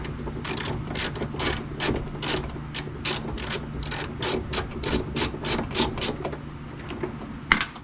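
Ratchet wrench clicking in quick strokes, about three to four clicks a second, as bolts on a truck door hinge are worked loose, over a steady low hum. A single sharp knock comes near the end.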